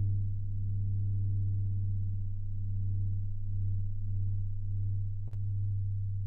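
Low, steady drone of meditation music, a deep pure tone that swells and fades slowly in a gentle pulse. A brief click sounds about five seconds in.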